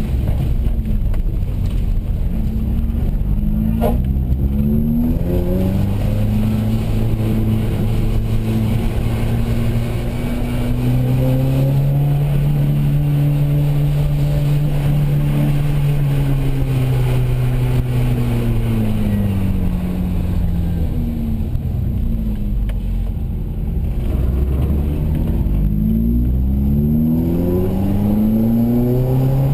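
A Renault Clio 182's 2.0-litre four-cylinder engine heard from inside the cabin as the car is driven, its pitch rising and falling. Several quick rising sweeps are followed by a longer steady stretch in the middle, then repeated climbs in pitch near the end. A single sharp click comes about four seconds in.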